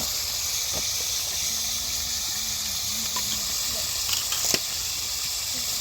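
Steady hissing noise, with a few light clicks about a second in and near the end, and faint low voices in the background.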